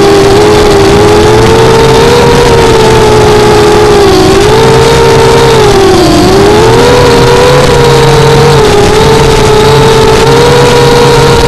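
FPV quadcopter's brushless motors and propellers whining in steady forward flight, over a loud rushing noise. The pitch sags and recovers with the throttle, most clearly about four and six seconds in.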